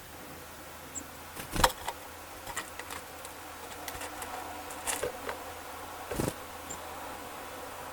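Small songbirds, titmice, feeding: scattered sharp taps and knocks from pecking and landing, the loudest about a second and a half in, over a faint steady buzzing hum.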